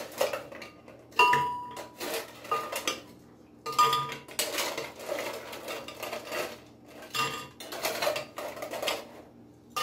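Metal ice scoop digging into ice cubes in a stainless-steel bucket and tipping them into a blender jar: clattering and clinking of ice on metal in several bursts, some with a brief metallic ring.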